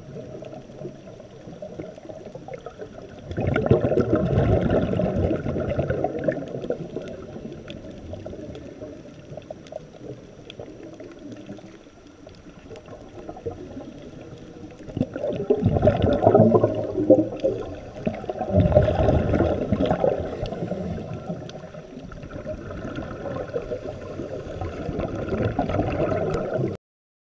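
Underwater ambience with scuba divers' regulator exhaust bubbles gurgling, coming in several loud bursts of a few seconds each. The sound cuts off suddenly near the end.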